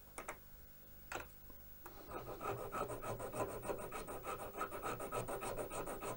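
Fine file worked in rapid, even strokes along the edge of a soldered, laminated model-locomotive coupling rod clamped in a small vise, taking off excess solder and neatening the joint. The filing starts about two seconds in, after a couple of faint clicks.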